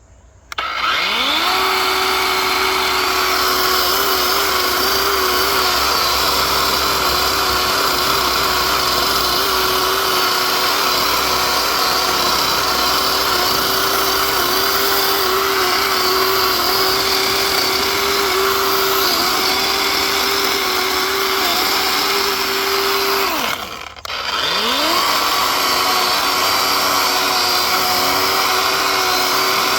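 DeWalt DCCS621B 20 V 12-inch battery chainsaw's electric motor spinning up and running at full speed as the chain cuts into wood, its whine wavering a little under load. After about twenty-three seconds it winds down and stops for a moment, then spins up again and keeps running.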